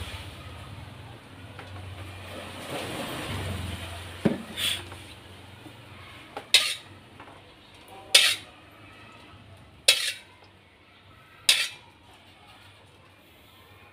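A metal spatula knocking against an aluminium wok, six short clinks about a second and a half apart, as oil is spread to heat. A steady hiss with a low hum fills the first few seconds.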